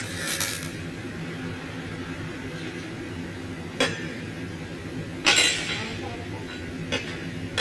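Two short bursts of arc welding, each about half a second, one at the very start and a louder one about five seconds in, over a steady low hum. A few sharp metallic clinks fall between them.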